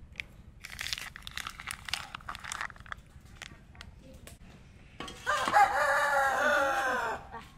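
A rooster crowing once, a long call of about two seconds starting about five seconds in. It comes after a few short scratchy noises.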